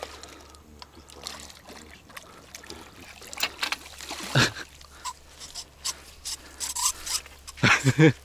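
Water trickling and splashing, with scattered clicks, knocks and rubbing, as a small carp is lifted out of the river on the fishing line.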